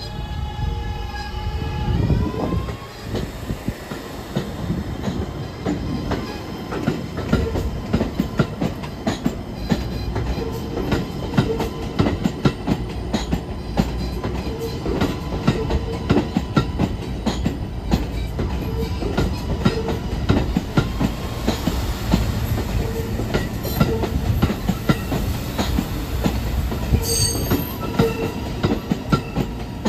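Kawasaki R211A subway train pulling out. In the first two seconds its propulsion whine rises in pitch. After that come a steady rumble and rapid clicking of wheels over the rail joints as the cars roll past, with a brief high wheel squeal near the end.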